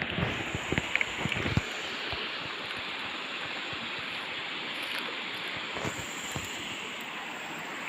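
Steady rushing of a creek's flowing water, even throughout. A few low thumps in the first second and a half.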